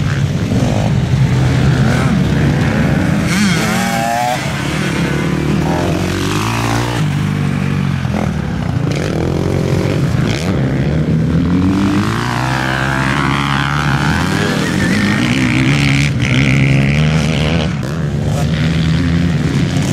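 Several engines running at once, overlapping, their pitch rising and falling again and again as they rev up and ease off.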